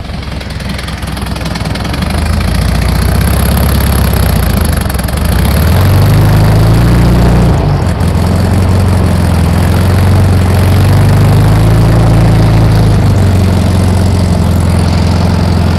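A 1964 VW Beetle's air-cooled flat-four engine idles after just catching, firing on a new distributor, cap and plug wires. Its speed rises and falls a few times as the timing and idle are set.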